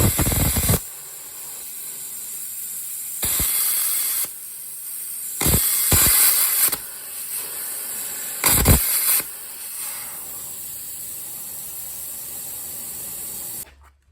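Plasma cutter cutting a steel plate: four loud hissing bursts as the arc fires, over a quieter steady hiss of air, which cuts off suddenly near the end.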